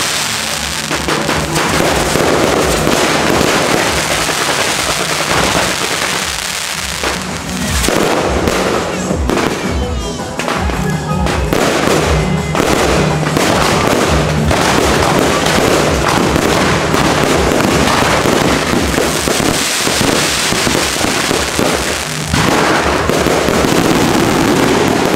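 Aerial fireworks display: shells bursting overhead in a dense, continuous barrage of bangs and crackling, getting louder in a big burst near the end.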